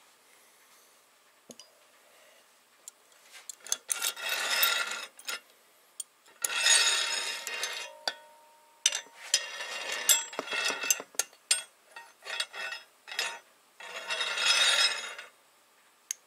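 Metal clinks and scraping from a bar-mounted valve spring compressor being worked and shifted on an aluminium 12-valve VR6 cylinder head. After a quiet start come scattered sharp clicks and three longer rattling metallic scrapes.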